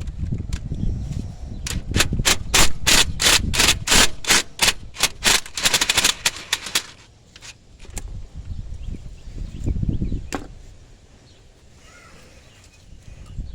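Hand ratchet wrench clicking in a fast run of strokes, about three or four clicks a second and quickening near the end, for about five seconds, with low rumbling handling noise before and after.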